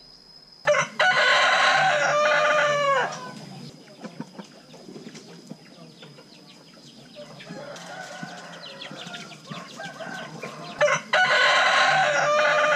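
A rooster crowing twice, about ten seconds apart: each crow is a loud call of about two and a half seconds that ends on a falling note. Softer, quieter calls come in between.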